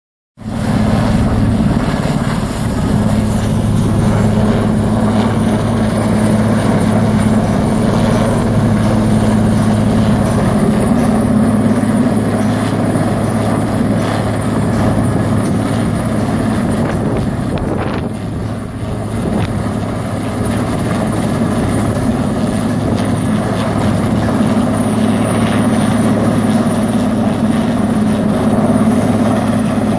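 Heavy-lift helicopter hovering with a load hanging on a long line: a steady, loud rotor and turbine drone with a constant low hum, easing off slightly for a moment midway.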